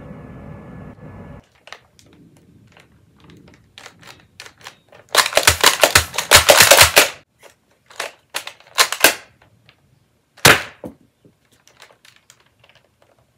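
Plastic clicks and rattles of a Nerf Elite Disruptor pistol being reloaded. The clicks come in a dense, loud run about five to seven seconds in, then scattered clicks, with one sharp snap about ten seconds in.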